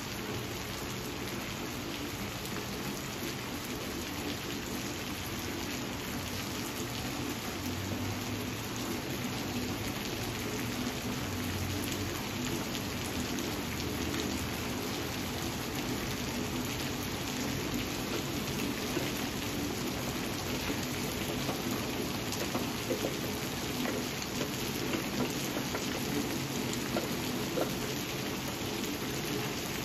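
Steady rain falling on dense leafy vines, an even hiss of drops. Partway through there is a low rumble of distant thunder.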